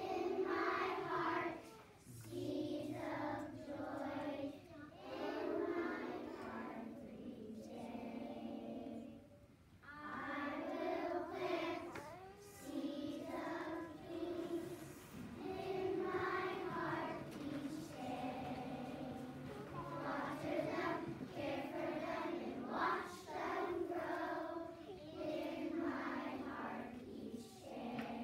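Choir of young children singing together, phrase after phrase with short breaths between.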